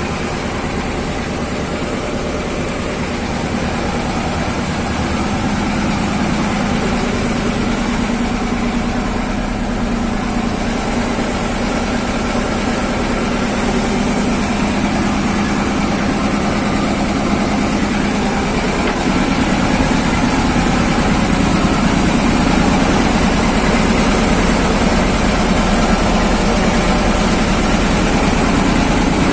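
Boat's engine running with a steady, loud drone, heard from inside the wooden hull; it grows a little louder about two-thirds of the way through.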